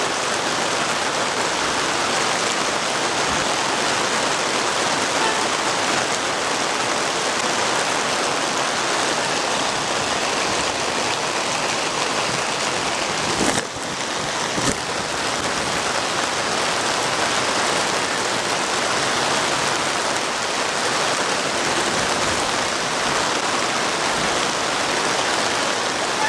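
Heavy rain falling steadily, a dense even hiss. Two brief knocks come about halfway through.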